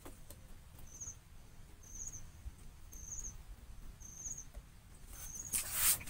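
A short, high chirp repeated about once a second, five times, from an unseen small creature. In the last half second, a loud rustle as hands scrape over cardboard and dirt.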